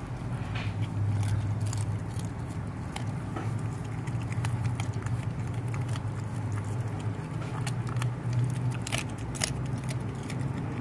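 A dog chewing and crunching on a whole raw fish: scattered sharp clicks and cracks of teeth on skin and bone. A steady low engine drone runs underneath.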